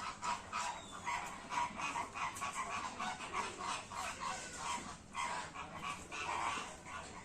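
Many birds calling at once, short overlapping calls coming several times a second.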